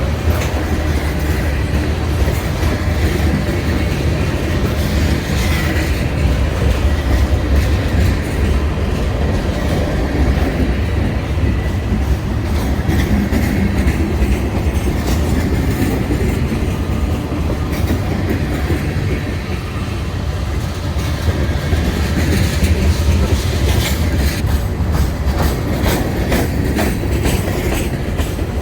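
Freight train cars rolling past, a steady loud rumble with the clickety-clack of wheels over the rail joints; the locomotives have already gone by.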